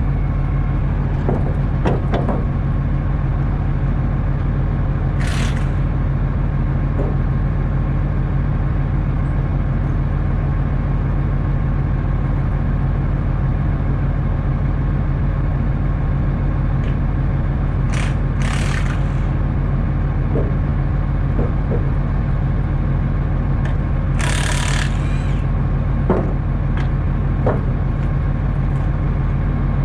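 A motor vehicle's engine running at a steady speed, with three short hisses of air spread through it.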